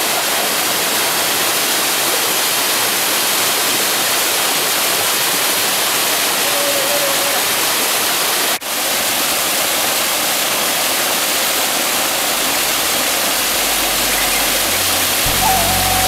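Steady rushing of a cascading mountain stream, with a momentary break about halfway through. Low music notes come in near the end.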